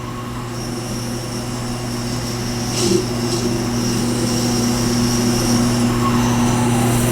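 Tormek T-8 sharpener's motor running with a steady hum that grows slowly louder, and one brief noise about three seconds in.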